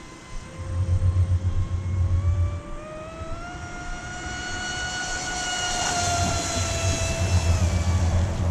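Electric RC speedboat's motor and propeller whining as the boat runs on the water. The pitch climbs as it speeds up toward full throttle, holds high, then dips a little near the end. A low rumbling is heard twice underneath.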